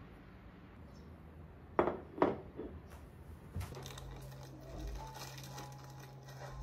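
Two sharp clacks about half a second apart as metal serving tongs handle a slice of chocolate bread on a ceramic plate, then a softer knock. After that a low steady hum sets in.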